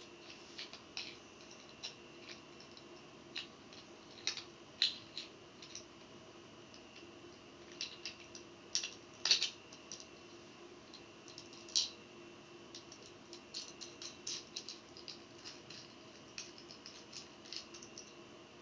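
Light, irregular clicks and taps of 3D-printed plastic printer parts and metal hardware being handled and fitted together, with a few louder taps, over a faint steady hum.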